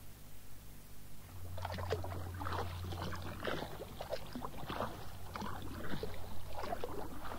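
Canoe paddle working the water: irregular splashes and drips starting about a second and a half in, over a steady low hum.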